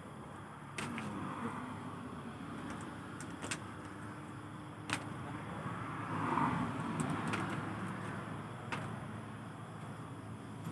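Steady road-traffic noise, with several short sharp clicks scattered through it.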